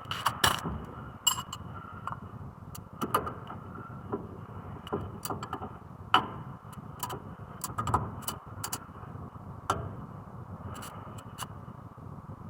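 Irregular light metallic clicks and knocks of tools and brake parts being handled, roughly one a second, during front brake pad work on a car.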